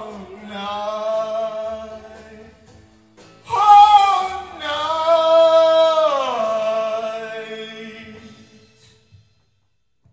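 A man singing two long held notes to end the song; the second note falls in pitch about six seconds in and fades out.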